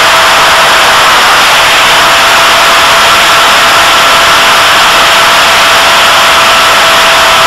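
The EFX Racer model plane's motor and propeller running steadily in flight, heard from a camera mounted on the plane's nose: a loud, even whine with a high steady tone over dense wind and propeller rush.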